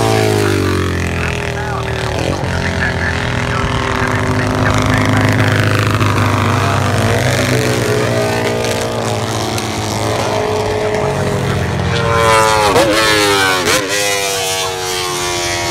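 Racing motorcycle engines at full throttle passing by, several at once, their pitch falling as they go. Near the end the engine notes dip and rise sharply a few times, as with gear changes.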